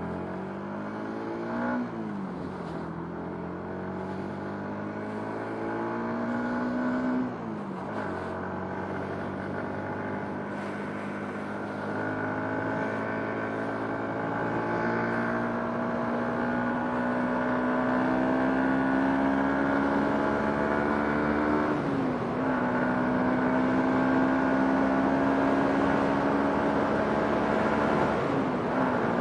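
Motorcycle engine pulling through the gears: its pitch climbs steadily, then drops at each upshift, about 2, 8 and 22 seconds in and again at the end.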